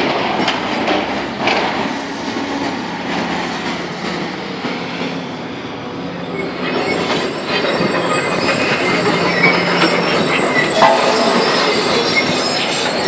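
Steel building framework screeching and clanking as a Hitachi excavator's demolition grab tears at it, with the excavator's engine running underneath. A couple of sharp metal knocks come in the first two seconds, and the screeching of metal grows louder about halfway through.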